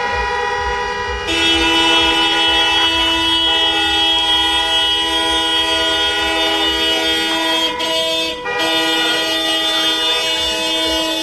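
Several vehicle horns held down together, sounding as a loud steady chord of mixed pitches. More horns join about a second in, and some cut out briefly near the end.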